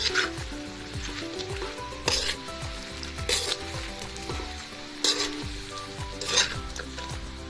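Metal spatula stirring and scraping fried green banana slices coated in brown sugar around a sizzling pan, with five sharp scrapes over a steady sizzle.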